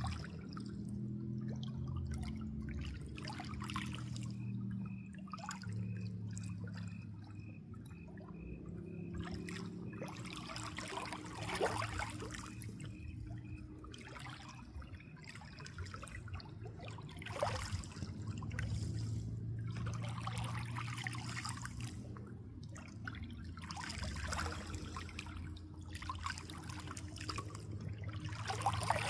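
Water trickling and dribbling steadily over a low, constant hum. Louder splashing surges come and go, the sharpest about twelve and seventeen seconds in.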